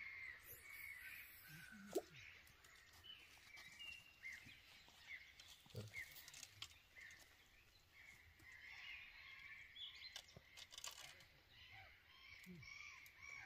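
Faint birdsong: many short high chirps overlapping, with a single sharp click about two seconds in.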